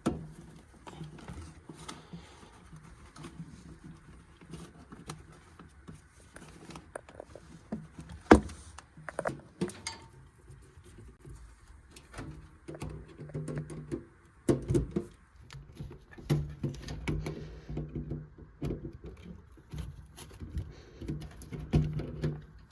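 Tools and metal parts being handled: scattered clicks and knocks, with one sharp knock about eight seconds in, over an intermittent low hum.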